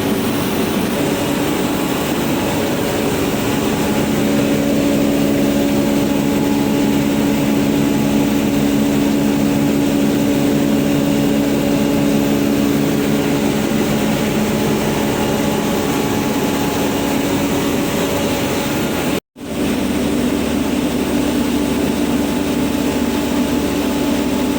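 Rice milling machine running steadily, a loud continuous machine drone with a held hum, dropping out for an instant about 19 seconds in.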